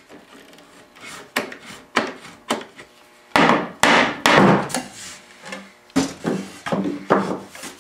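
Nailed wooden back boards of an old chest of drawers being worked loose and taken off: a few sharp knocks, then louder, longer wood scraping and rubbing from about three seconds in, and more knocks near the end.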